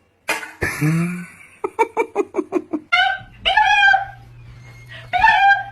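A dog yelping and whining: a quick run of short yips, then a few high-pitched whines that bend up and down.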